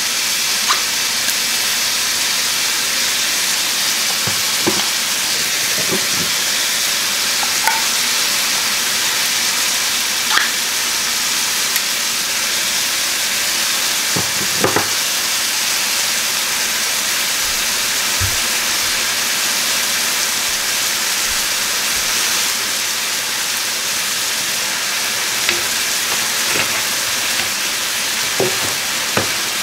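Diced seasoned chicken frying in a nonstick skillet: a steady sizzling hiss, broken by a few short light clicks and knocks.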